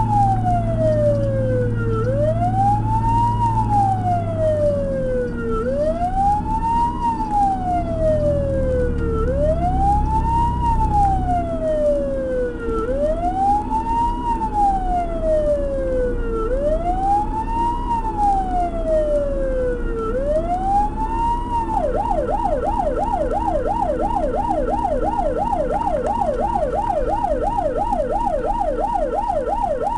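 Fire truck's electronic siren on a wail, rising and falling about every three and a half seconds, then switching about two thirds of the way through to a fast yelp. A low engine rumble runs under the siren for the first dozen seconds.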